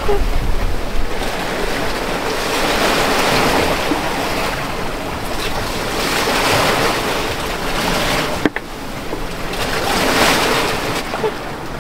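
Rough sea rushing and splashing past a sailboat's hull in strong wind, the wash swelling and easing every three to four seconds, with wind on the microphone. A single sharp click about eight and a half seconds in.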